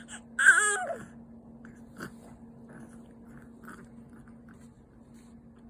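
A 54-day-old baby gives a short fussy wail about half a second in, then makes soft, irregular clicking and smacking sounds of sucking at the feed.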